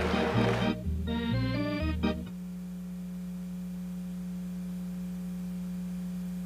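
Organ music: a quick run of rising notes about a second in, ending on a long held chord.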